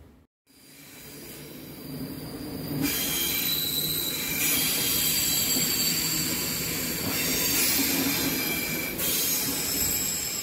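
SBB locomotive-hauled double-deck intercity train rolling past with its wheels squealing: several high, steady squeal tones over the rolling noise. The squeal builds over the first few seconds and eases off near the end.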